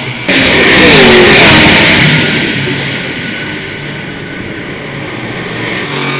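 Racing car engines passing close at speed: one car goes by about a second in, its engine note dropping in pitch as it passes, and more cars come up and pass near the end.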